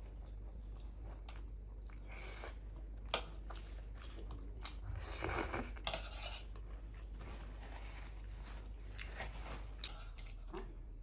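Close-miked eating: chewing and biting into momo dumplings, with scattered wet mouth noises and a few sharp clicks.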